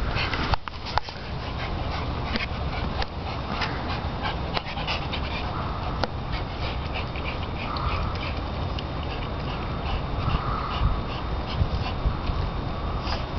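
Dogs panting as they move about, with a few short, faint whines about eight and eleven seconds in.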